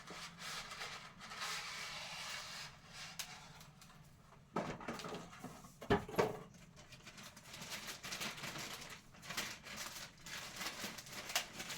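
Rustling and handling of boxes and food packages being pushed into a kitchen cabinet, with a few sharp knocks as items are set down, the loudest about six seconds in.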